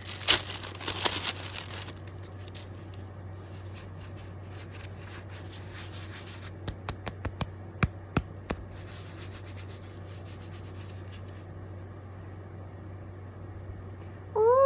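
Hands handling an unboxed item and its packaging: a burst of rustling and rubbing in the first second or two, then a handful of light clicks and taps about seven to eight and a half seconds in, over a steady low hum.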